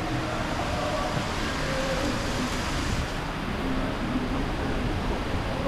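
Steady outdoor background noise with faint, indistinct voices mixed in.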